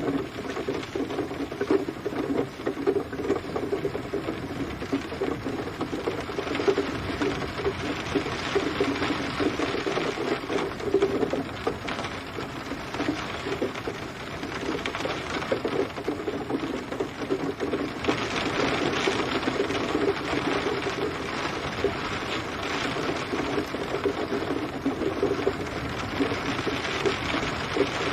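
Steady rain pattering on a surface, a dense fast ticking of drops over a continuous hiss, which grows fuller and brighter about eighteen seconds in.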